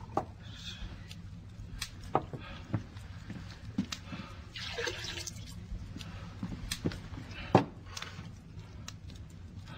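Light knocks and clinks of kitchen crockery, a bowl and an enamel mug handled on a wooden table, with a short watery hiss about five seconds in and a sharper knock about three-quarters through, over a steady low hum.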